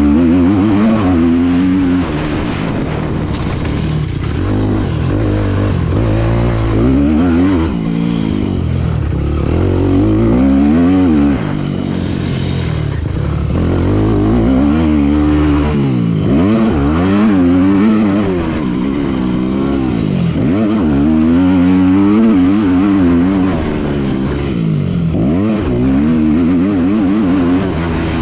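Carbureted 2011 Yamaha YZ250F's 250 cc four-stroke single-cylinder engine revving hard under riding. Its pitch climbs and drops again and again as the rider accelerates, shifts and backs off the throttle.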